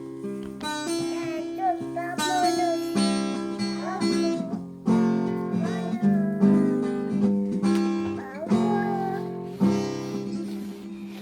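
Acoustic guitar music: strummed and plucked chords ringing on.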